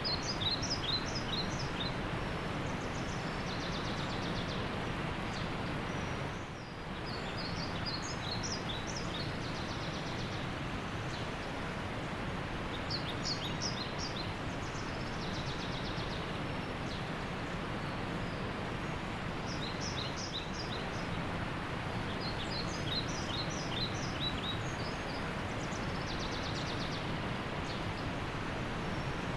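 Steady rush of a waterfall, with a bird's short, high chirping calls coming in quick runs every few seconds over it. The rush dips briefly about six seconds in.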